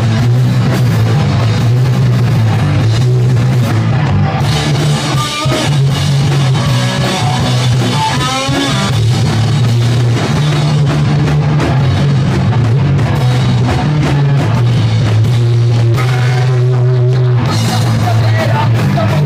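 Live rock band playing loudly: electric guitars and drum kit, with a heavy, steady low end.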